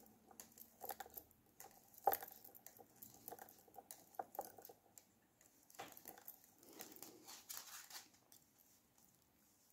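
Faint, irregular clicking of metal-tipped circular knitting needles and rustling of cotton yarn as stitches are knitted by hand, with a softer rustling stretch near the end.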